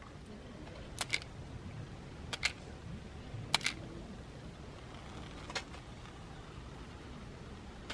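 Sharp clicks in quick pairs, three pairs a little over a second apart and then a single click, over a low outdoor hiss.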